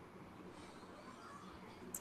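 Near silence: faint steady hiss and low hum, with one brief faint click near the end.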